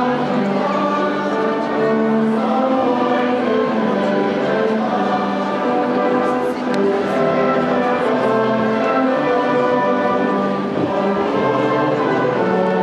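Church choir singing a hymn in harmony, several voice parts holding long notes together.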